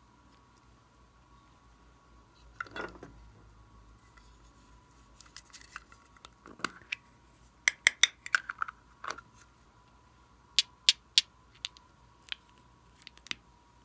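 Sharp plastic clicks and taps from small cosmetic containers being handled and opened. The clicks come in quick clusters, the busiest about eight and eleven seconds in.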